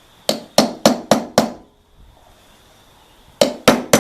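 Hammer blows driving a rubber seal out of a snowblower gearbox housing: a quick run of five strikes, a pause of about two seconds, then another run of three.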